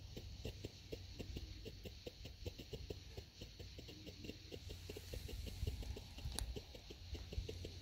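Novelty firework fountain in its final silver strobe stage, giving a run of small pops at about five a second, with one sharper crack about six seconds in.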